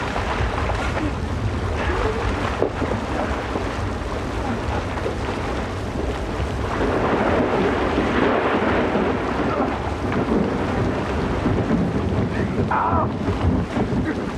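Heavy, steady downpour with a deep rumble of thunder underneath, swelling louder for a few seconds in the middle.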